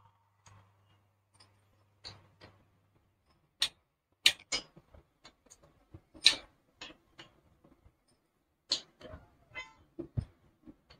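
Metal hand tool clicking and knocking against the bolts of a motorcycle engine's rocker blocks as they are tightened: scattered sharp clicks, loudest in the middle, with a short quick rattle near the end.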